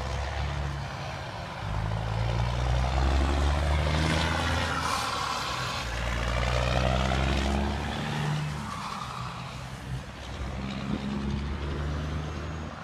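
Cabover semi-truck's diesel engine running as the truck pulls a trailer past and away, its engine note stepping up and down in pitch several times.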